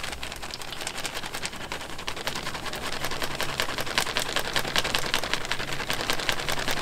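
Plastic bag crinkling as static grass fibres are poured from it into the plastic pot of a static grass applicator: a dense run of small crinkles and clicks that grows louder.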